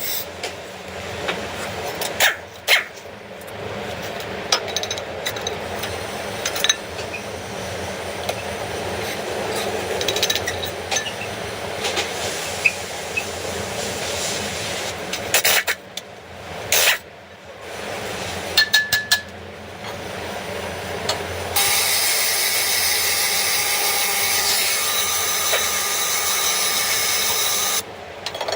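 Hand tools working on car front-brake parts: scattered metallic clinks and knocks over scraping and rubbing. Near the end comes about six seconds of steady hiss that cuts off abruptly.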